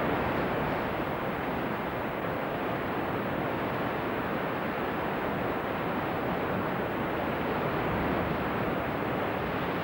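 Sea surf and wind: a steady rushing with no breaks or distinct events.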